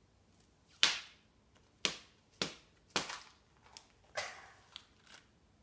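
Blue plastic Easter egg clicking and snapping as a child pries its two halves apart: a string of sharp plastic snaps, the loudest about a second in, with several more over the next few seconds.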